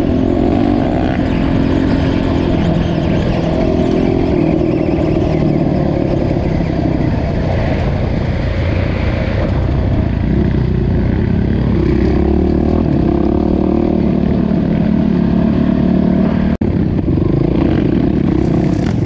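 Dirt bike engine running under way, its pitch rising and falling as the rider works the throttle on a bumpy trail. The sound drops out for an instant near the end.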